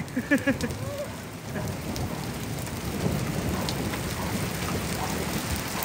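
Steady rain falling, with a low rumble of thunder that swells in about a second and a half in and rolls on.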